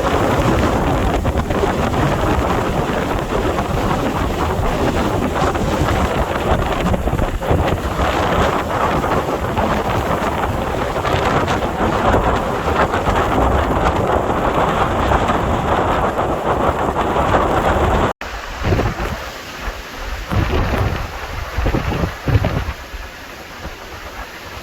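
Hurricane wind and heavy rain blowing hard in a loud, steady rush. After a cut about 18 seconds in, the wind comes in uneven gusts that buffet the microphone with low rumbles.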